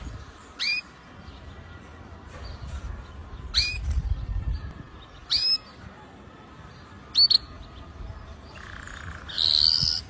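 Red factor canary calling: four short, sharp rising chirps a second or two apart, the fourth doubled, then a longer, busier call near the end.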